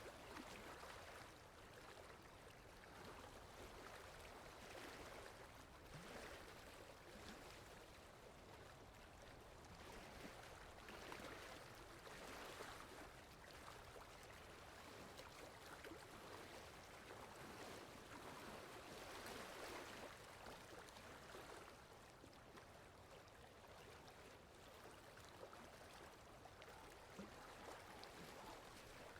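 Faint water lapping in soft, irregular swells every second or two, over a steady low wind rumble.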